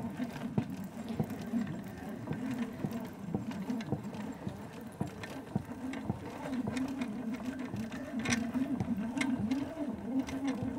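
Wall-mounted Liberty hose reel being hand-cranked, winding a garden hose onto its drum: a steady mechanical running sound with many small clicks.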